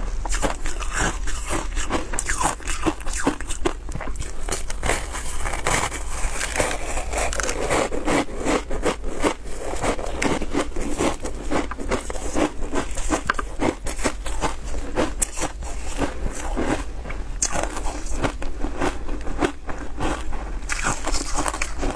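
Pressed shaved ice, coated in milk powder, bitten and chewed close to the microphone: a dense, continuous run of crisp crunches and crackles.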